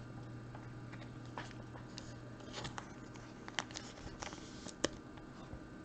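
Trading cards being handled at a table: scattered light clicks and rustles of cards and plastic holders being moved and set down, over a faint low hum.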